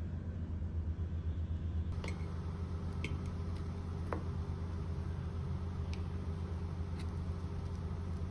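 A steady low hum runs under the scene. From about two seconds in there are a few light clicks and taps of chopsticks and a spoon against ceramic dishes, one with a short ring.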